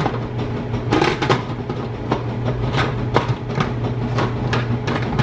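Plastic lid of an Instant Pot electric pressure cooker being set on and twisted into its locked position: a series of irregular clicks and knocks, the loudest near the end, over a steady low hum.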